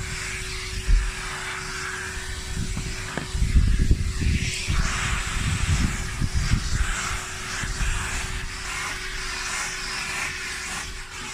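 Vacuum cleaner running steadily with a constant motor whine, its suction hiss rising and falling as the nozzle is worked over the car's seats and interior, with low bumps and knocks through the middle.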